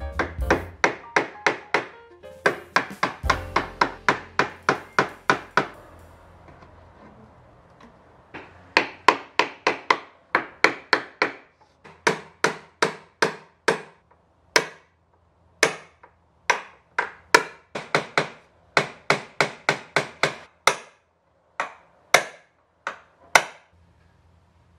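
Hammer driving nails into a wooden board. The sharp blows come in quick runs of about three a second, stop for about two seconds near the middle, then turn slower and more spread out towards the end.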